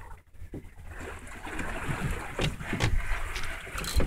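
Wind buffeting the microphone and water washing against a small boat's hull, with a few light knocks.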